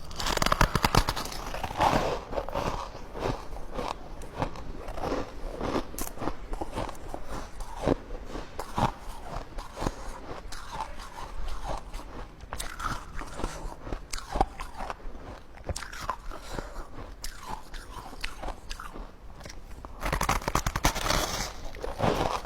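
A person biting and chewing hard ice, with continual crunching that is loudest for the first couple of seconds and again near the end.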